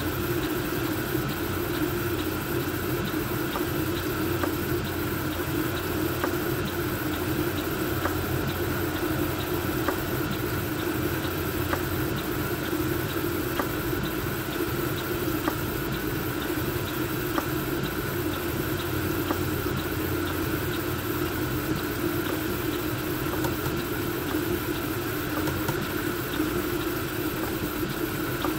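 Voron V2.4 CoreXY 3D printer printing at high speed: a steady whir of its blower fans over the hum of the stepper motors moving the toolhead, with light ticks every second or two.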